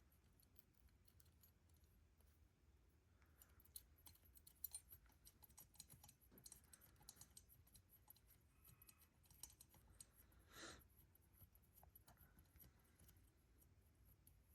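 Near silence with faint, scattered clicks and ticks of small metal carburetor parts being handled and threaded together, and one brief scrape about ten and a half seconds in.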